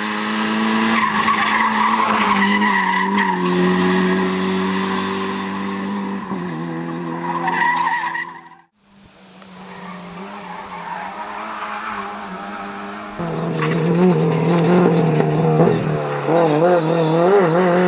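Rally car engines running hard at high revs. The sound cuts off suddenly about nine seconds in. Then a rising rush of noise comes in, and from about thirteen seconds an engine's pitch wavers up and down as it revs.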